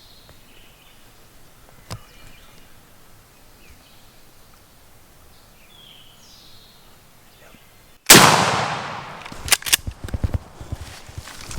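Faint small-bird chirps, then about eight seconds in a single loud shotgun blast with a long, fading echo. A few sharp knocks and rustles follow.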